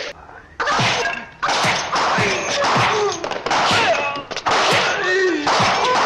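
A man's shrill, wavering martial-arts battle cries, about five in quick succession, with punch and whack sound effects of a film fight among them.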